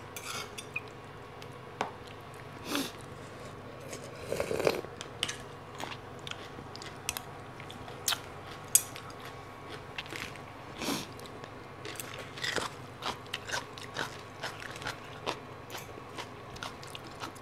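Close-up chewing and biting of crunchy green papaya salad: irregular wet crunches and sharp mouth clicks, with a few longer crunches now and then.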